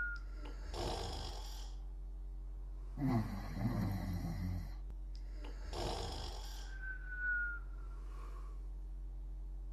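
Slow, regular snoring: a rattling snore about three seconds in, and breathy exhales near one second and again near seven seconds, each with a thin falling whistle. A low steady hum runs underneath.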